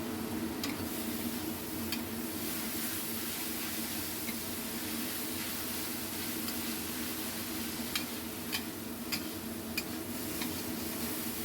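Shredded papaya stir-frying in a pan: a steady sizzle as it is stirred, with a few sharp clicks of the spatula against the pan, mostly in the last few seconds, over a steady low hum.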